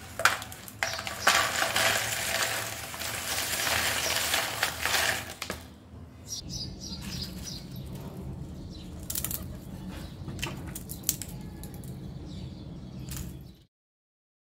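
Crisp fried banana chips slide off a plate and rattle into a plastic bowl for about five seconds. Then come quieter, scattered crackles and clicks as a hand picks through the chips. The sound cuts off about a second before the end.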